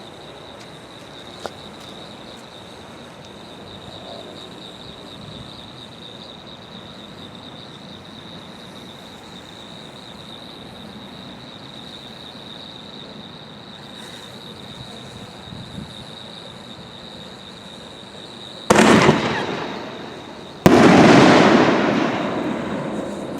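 Consumer firework artillery shell fired from its mortar tube: a sudden loud launch boom, then about two seconds later a louder report as the shell breaks overhead, fading away slowly.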